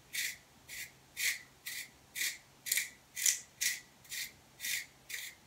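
A carrot being twisted by hand through a spiral vegetable slicer, the blade shaving it into thin noodle strands. It comes as short cutting strokes, about two a second.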